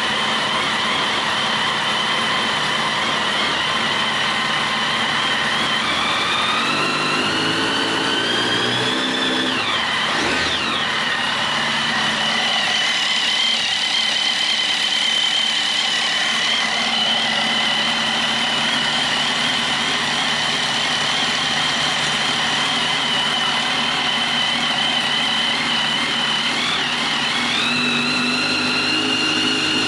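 Kawasaki ZX-10R inline-four engine running steadily at idle on its first runs after a rebuild, still warming up. The engine speed climbs over a few seconds, drops back sharply about ten seconds in, and steps up again near the end.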